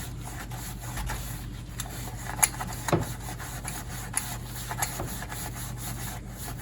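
Very fine 0000 steel wool scrubbing solid brass furniture hardware, a continuous scratchy rubbing of quick back-and-forth strokes with a few sharper scrapes, polishing off tarnish. A steady low hum runs underneath.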